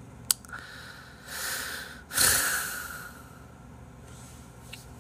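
A man's breath close to a microphone: a sharp click near the start, a softer breath in, then a loud, noisy exhale a couple of seconds in that fades over about a second.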